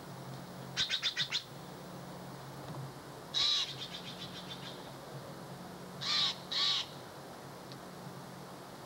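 Steller's jay giving harsh calls: a quick run of about five near the start, one call trailing into a fast chatter about three and a half seconds in, and two more calls about six seconds in. A low steady hum runs underneath.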